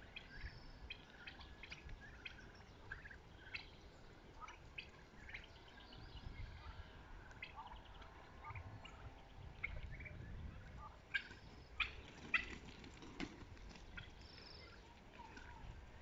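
Young turkey poults peeping faintly while foraging: scattered short, high chirps throughout, with a few louder ones about three-quarters of the way through.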